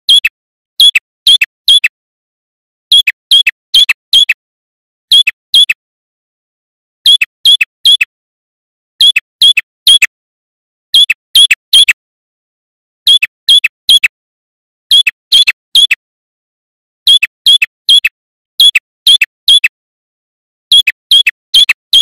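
Male prenjak kepala merah (a rufous-headed tailorbird) calling loudly. It gives short bursts of three or four sharp, quick notes, each dropping in pitch, and repeats a burst about every two seconds.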